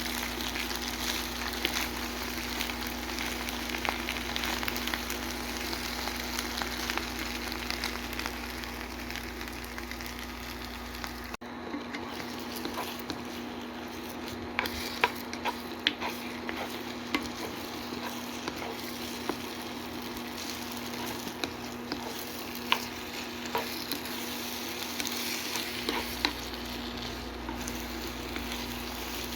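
Egg fried rice sizzling and frying in a pan while it is stirred, with sharp clicks of a utensil knocking against the pan, more frequent in the second half. A steady low hum runs under it.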